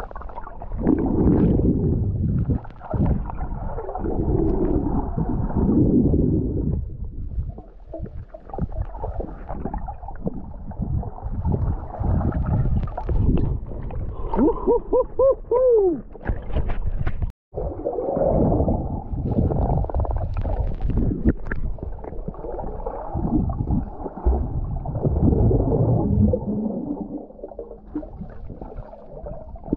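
Muffled underwater water noise: rushing and bubbling in uneven surges from swimming movement. About halfway through comes a brief wavering tone, sounding a few times.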